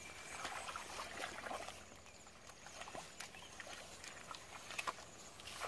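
Bare feet squelching and splashing through wet mud and shallow muddy water in irregular steps, with faint high-pitched chirping in short repeated bursts behind.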